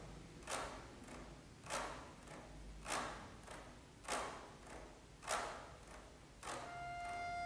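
Accordion played with a quiet, noisy percussive effect rather than notes: short strokes that fade quickly, repeating evenly about every 1.2 seconds, with fainter ones in between. Near the end a single held accordion note comes in.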